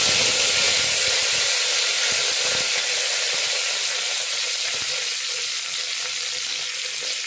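Fresh curry leaves and dried red chillies sizzling in hot oil with fried mustard seeds, the tempering (tadka) for rasam: a loud, even hiss that slowly fades.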